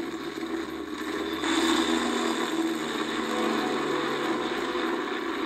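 Engines of a twin-engine Grumman HU-16 Albatross seaplane running steadily as it flies low, a film soundtrack heard through a TV speaker; it gets louder about a second and a half in.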